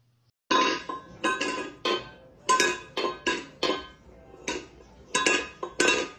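A cat batting a small stainless steel bowl around a hard floor with its paw. About a dozen sharp metal clanks come at an irregular pace, each ringing briefly, beginning about half a second in.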